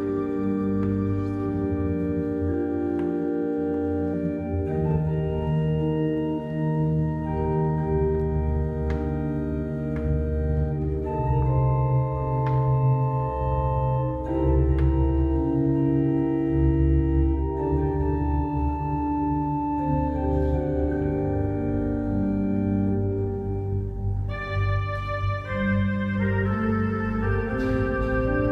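Church organ playing slow, sustained chords that change every second or two; the sound turns brighter near the end as higher notes join in.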